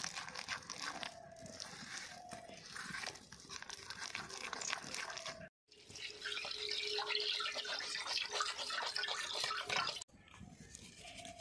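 A hand squelching and kneading a thick, wet batter in a steel bowl. After a cut, water is poured over leafy greens in a plastic colander and splashes into a steel basin, the loudest part, stopping suddenly a little before the end.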